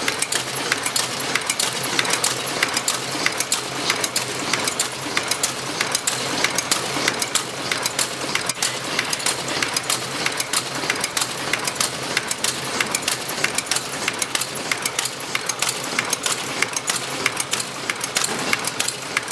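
Tea packaging machine running steadily, its mechanism making a rapid, even clatter of several clicks a second.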